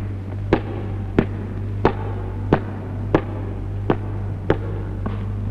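Footsteps of hard-soled shoes on a floor: seven even steps, about one every two-thirds of a second, over a steady low hum on the old film soundtrack.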